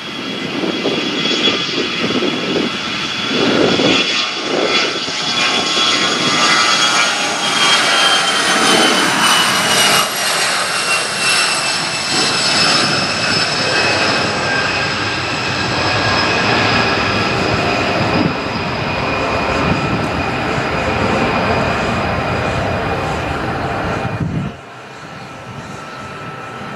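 Twin rear-mounted turbofans of an Endeavor Air CRJ-900 regional jet at takeoff power on the departure roll and climb-out. A loud, steady engine noise carries a high whine that slowly falls in pitch as the jet passes and climbs away. The sound drops off suddenly near the end.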